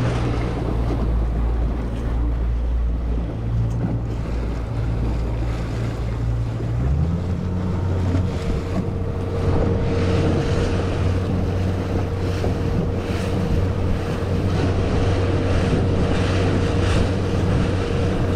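Motorboat engine running steadily under way, with water rushing past and wind buffeting the microphone; the engine note rises about seven seconds in as it speeds up.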